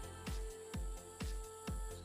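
Background electronic music with a steady beat, about two beats a second, over sustained synth tones.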